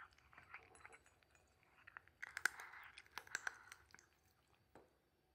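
Cat crunching dry kibble, with bursts of short crunches that are loudest in the middle and die away near the end.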